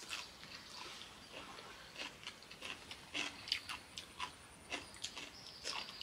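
Close mouth sounds of people eating chicken biryani with their fingers: irregular wet chewing and lip smacks, several a second. A thin high steady tone comes in near the end.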